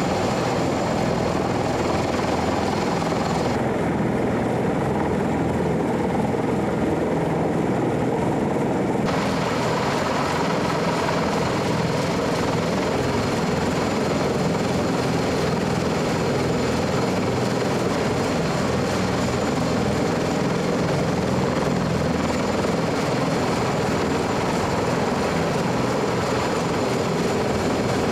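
CH-53E Super Stallion helicopter turning its rotors on deck with its turboshaft engines running: a steady, dense rotor rumble with a thin high turbine whine over it.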